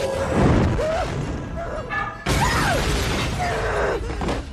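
Film sound effects: a loud crash of shattering, starting suddenly about two seconds in, layered over dramatic music with gliding pitched sounds; it all cuts off abruptly at the end.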